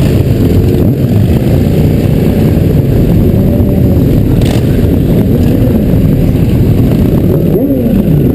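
Many motorcycle engines running at low speed in a slow-moving group, with one engine's revs dropping sharply near the end.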